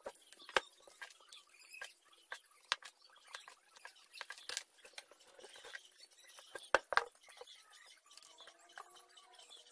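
Steel spokes clicking and ticking against a chrome wheel rim and hub as they are threaded in by hand while lacing a motorcycle wheel: irregular light clicks, with two sharper ones close together about seven seconds in.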